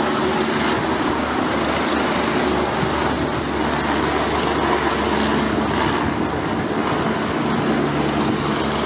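Eurocopter EC145 helicopter in flight: a steady rotor and turbine sound.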